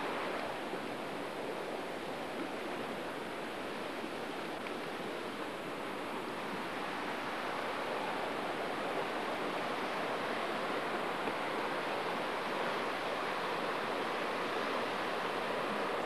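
Steady rushing of river water running over a weir and rapids.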